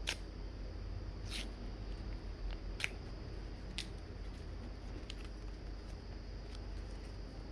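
A package being opened by hand: a few sharp, separate clicks or snips of packaging, over a low steady hum.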